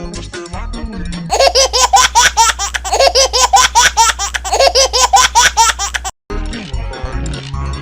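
Rapid, high-pitched cartoon-style laughter, a quick run of 'ha' syllables at about five a second over a steady low hum, starting about a second in and cutting off abruptly after about six seconds; music-like sound before and after it.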